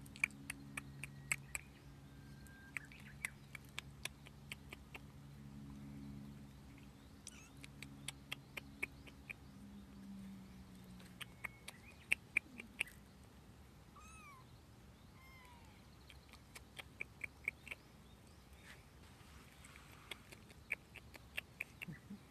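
Stray kittens mewing: two short calls, each falling in pitch, about two-thirds of the way through, amid repeated quick runs of sharp clicks.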